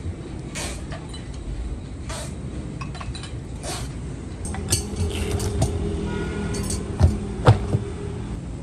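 Scattered metallic clinks and knocks over a steady low hum, with the sharpest knocks coming in a quick cluster near the end.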